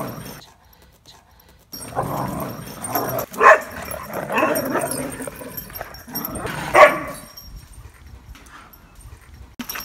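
Two sighthounds play-fighting and barking at each other, with two sharp, loud barks about three and a half and seven seconds in. It goes briefly quiet about a second in and quieter again near the end.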